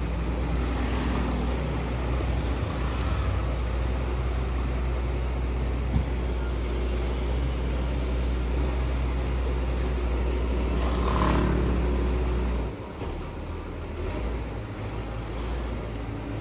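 Heavy diesel engine of construction machinery running steadily with a low rumble, dropping in level a little under 13 seconds in.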